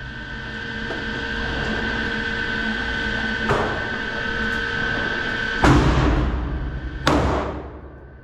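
Glock 19X 9mm pistol shots: a fainter report about three and a half seconds in, then two loud shots about a second and a half apart near the end, each ringing out in a booming echo off the range walls. A steady hum runs underneath.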